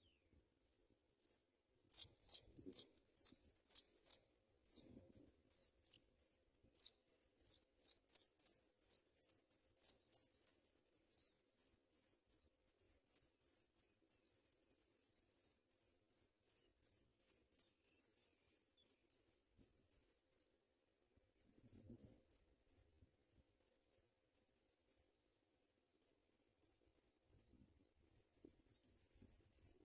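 African pipit nestlings begging: rapid, very high-pitched chirping in irregular bursts, loudest in the first third and then coming in shorter runs with gaps. A few soft rustles sound under it.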